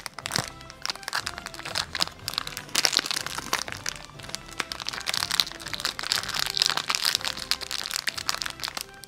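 Snack wrapper crinkling and crackling in irregular bursts as it is opened and a filled pastry is worked out of it, over background music.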